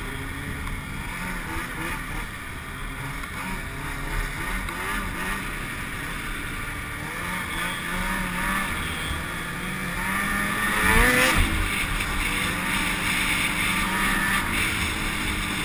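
Snowmobile engines running under way, with wind noise on the helmet-mounted microphone. About eleven seconds in, an engine briefly revs up, the loudest moment.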